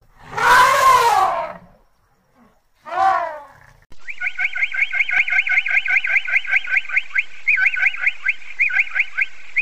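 An African elephant trumpets twice, a long falling call and then a shorter one. About four seconds in, a vulture's rapid chattering calls take over, about eight short high notes a second.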